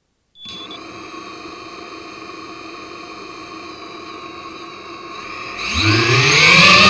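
FPV racing quadcopter's brushless motors and propellers starting about half a second in and idling with a steady whine, then spooling up sharply about five and a half seconds in, the pitch rising fast and the sound much louder as it throttles up to take off.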